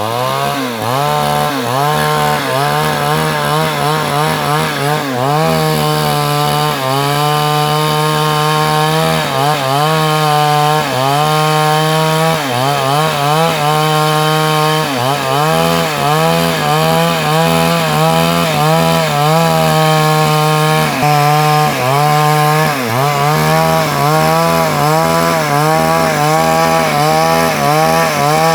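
Two-stroke chainsaw running at high revs and cutting wood. Its engine pitch dips under load and recovers again and again. The owner calls the engine still in good shape and strong.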